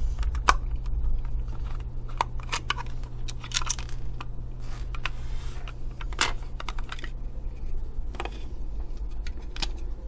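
A small screwdriver backs a screw out of a plastic Ethernet cable tester case, then the plastic case halves are handled and pulled apart: scattered small clicks and scrapes over a steady low hum.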